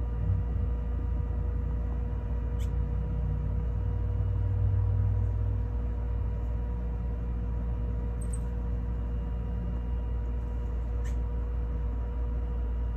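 Steady low mechanical hum with a few constant whining tones, slightly louder in the first half. Three brief high chirps are spread through it.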